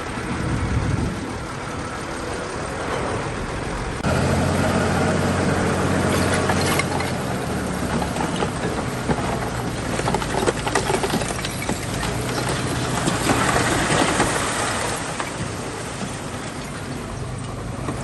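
Bulldozer's diesel engine running under load, with clanking and rattling from the tracks and the stone, busiest in the middle. The engine gets suddenly louder about four seconds in.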